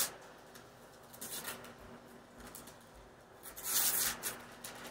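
Wrapping paper rustling and tearing as a child unwraps a present, in a few short crinkly bursts, the biggest a little under four seconds in.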